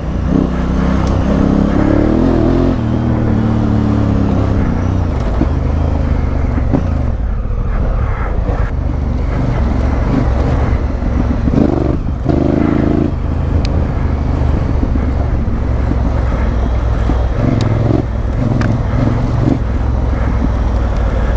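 Honda Africa Twin CRF1000L parallel-twin engine pulling the bike along under changing throttle. The engine note falls in the first few seconds, then picks up in short bursts around the middle and again later, with a few sharp ticks over it.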